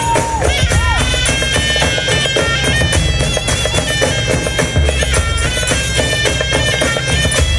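Tunisian folk dance music: a reedy wind melody moving in held, stepped notes over fast, dense hand-drum beats.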